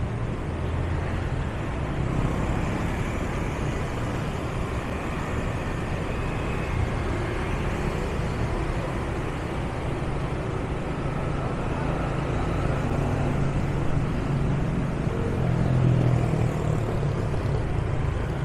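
Steady city street traffic noise heard while moving through it: a continuous mix of vehicle engines and road noise.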